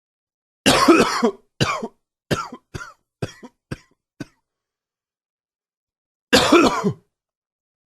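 A man coughing: a bout of seven coughs starting about a second in, the first long and each after it shorter and fainter, then after a pause one more long cough near the end. The uploader puts the coughing down to allergies.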